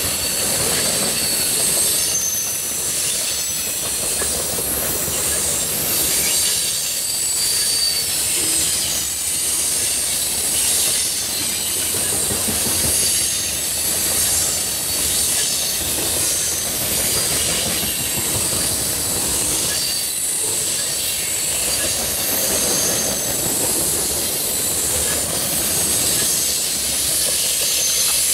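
Covered hopper cars of a CSX freight grain train rolling past close by: a steady, loud rolling noise of steel wheels on rail, with high-pitched wheel squeal coming and going.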